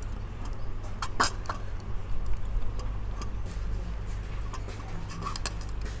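A handful of light clicks and taps of chopsticks and a spoon against a bowl, the sharpest a little over a second in, over a steady low hum.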